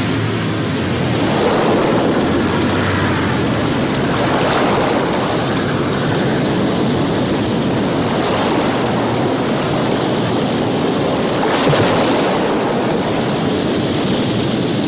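Sea waves and wind: a steady rushing that swells several times, most strongly near the end.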